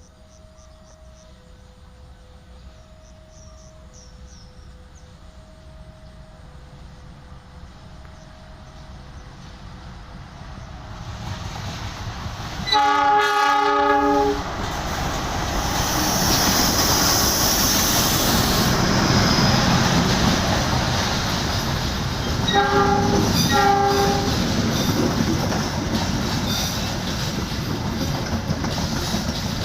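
A diesel locomotive sounds its horn in one long blast as the train draws near, and about ten seconds later gives two short blasts, over the growing rumble and wheel clatter of the train passing over the switches. Before it arrives, a faint two-note chime alternates steadily and is lost under the train noise.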